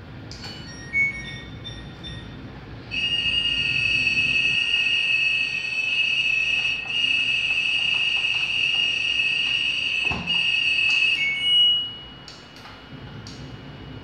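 The LG front-loading washing machine's control panel beeps as its buttons are pressed. A few short electronic beeps of different pitch come first, then a loud, steady, high electronic tone holds for about eight seconds and ends in short beeps.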